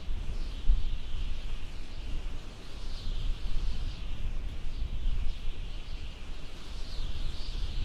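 Many birds chirping together in a dense, continuous chatter over a low, uneven rumble.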